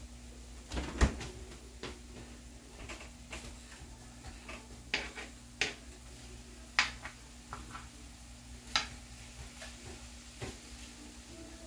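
Metal spoon clinking and scraping against a frying pan of eggs cooking in tomatoes, in scattered sharp taps a second or so apart, over a faint steady hum.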